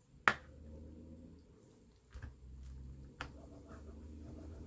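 A single sharp tap or click just after the start, then quiet handling of paper and fabric with a few faint clicks over a low steady hum.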